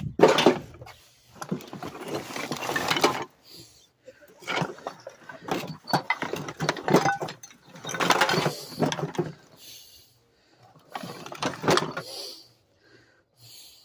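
Four bursts of rattling and scraping, each one to three seconds long, from a wheelbarrow heaped with broken ceramic tile and drywall debris as it is handled.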